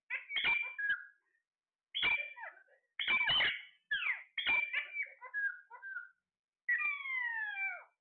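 Alexandrine parakeets calling in a string of short squawks with brief silent gaps between them, then one longer call that slides down in pitch near the end.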